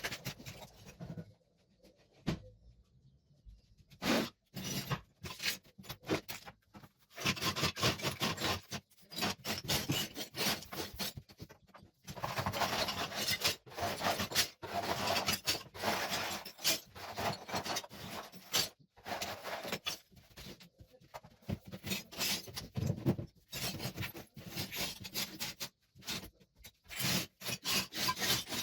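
Repeated rasping, scraping strokes against a hard surface, coming in quick runs with short pauses and a longer pause a couple of seconds in.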